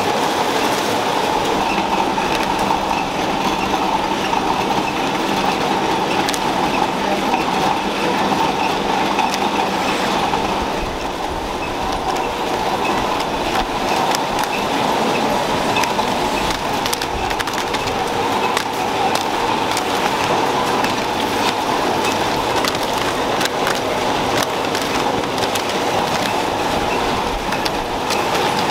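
Packaging-line machinery running steadily: continuous band sealers and conveyor belts giving a constant mechanical whir, with scattered light clicks.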